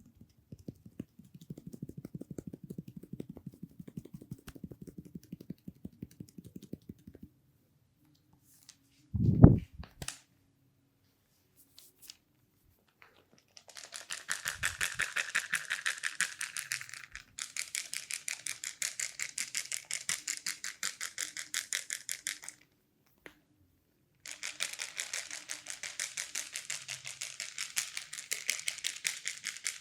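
Hand massage of the head and neck: several seconds of rapid, soft patting, a single loud thump about nine seconds in, then long runs of fast, crisp, rattling rubbing with one short pause.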